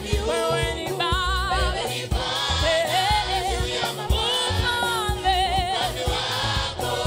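Live gospel song: a woman's lead voice and a group of backing singers over a band with drums, bass and keyboard. The voices hold notes in wide vibrato about a second in and again just past five seconds.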